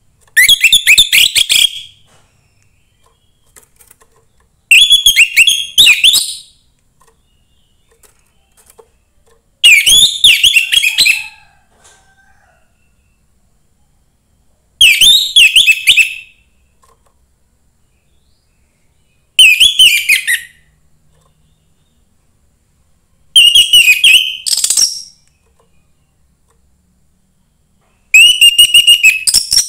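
Young wild orange-headed thrush (anis merah) singing: seven short, loud phrases of quick whistled notes, one about every five seconds.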